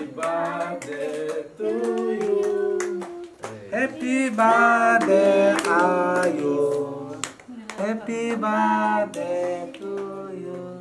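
People singing together, with scattered hand clapping.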